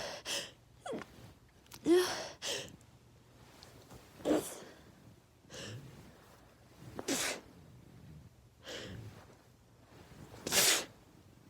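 A woman sneezing again and again, several sneezes a couple of seconds apart with breaths in between; the loudest come about two seconds in and near the end. This is allergy sneezing from hay fever brought on by pollen.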